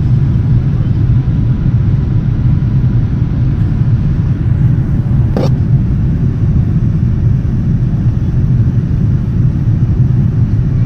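Steady low drone of a Boeing 787 Dreamliner's cabin in cruise: engine and airflow noise heard from a passenger seat. A single short click about halfway through.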